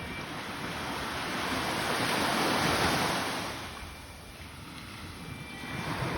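Sea waves washing onto the shore: one wave swells up and fades away over about three seconds, and a smaller one rises near the end.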